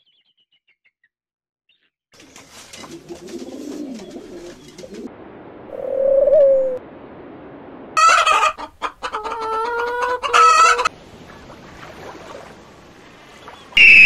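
Domestic chickens clucking after a brief silence, with a short loud call about six seconds in and a louder, drawn-out call from about eight to eleven seconds.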